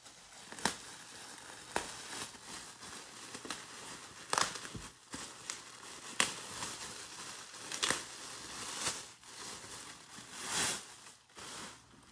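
Plastic packaging crinkling and rustling as hands rummage through and pull apart plastic-wrapped handbags in a cardboard box. There are sharp crackles every second or two and a longer, louder rustle near the end.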